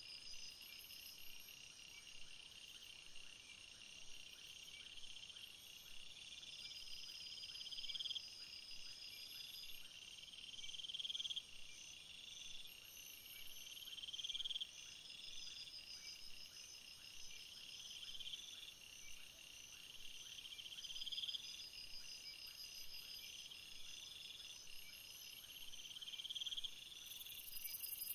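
Insects chirring in a steady high-pitched chorus, with one call that swells and cuts off abruptly every two seconds or so.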